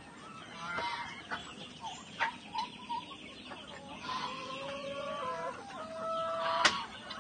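Heritage chickens clucking, then a rooster crowing in one long call from about four seconds in. A sharp click comes near the end.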